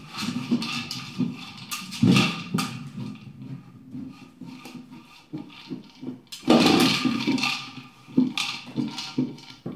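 A blue plastic dog toy knocked and rolled across wooden floorboards by dogs, clattering and rumbling in several irregular spells.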